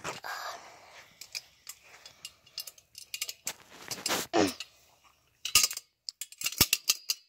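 Small metal tools and parts being handled and fitted together: a run of irregular sharp clicks, clinks and short rattles.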